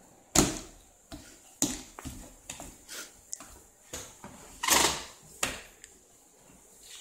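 Baby's bare hands slapping a tile floor while crawling: a string of irregular sharp slaps, the loudest about half a second in.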